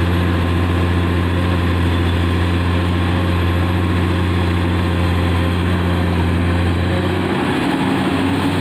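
Komatsu PC200 excavator's diesel engine running steadily close up, a loud, even low drone. Near the end the low hum briefly wavers.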